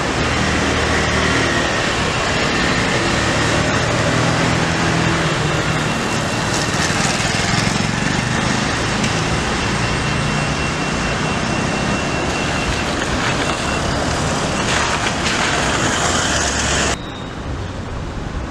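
Loud street noise: a motor vehicle's engine running close by over a dense hiss of traffic. Near the end the sound drops abruptly to a quieter, thinner background.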